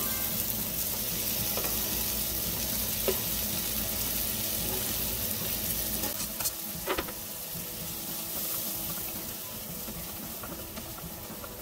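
Chopped onion and bell peppers sizzling steadily as they sauté in a stainless-steel saucepan, with a few sharp knocks of a knife against the pan, the clearest about three and seven seconds in, as more chopped pepper is scraped in off a wooden board.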